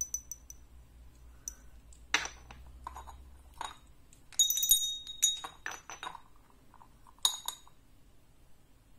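Two small souvenir hand bells being handled and rung: a few light knocks and clinks, then a bright, high ringing that lasts about a second midway, and another short ring near the end.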